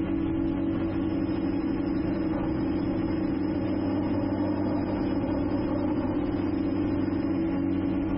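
Drone motors and propellers humming steadily in flight, an even pitched whine that holds the same pitch and level throughout.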